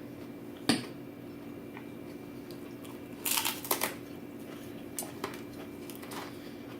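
Pizza being eaten close to the microphone: a crisp crunching bite about three seconds in, a sharp click just under a second in and a few smaller clicks later, over a faint steady hum.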